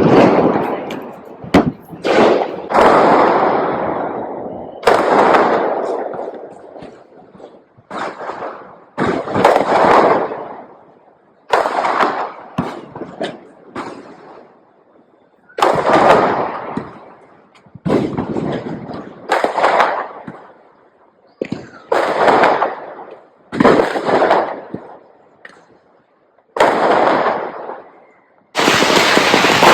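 Firecrackers going off: a series of loud, sharp bangs about every two seconds, each with a long echoing tail. Near the end the bangs run into a continuous crackling din.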